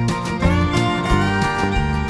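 Background music: a country-style instrumental tune with guitar.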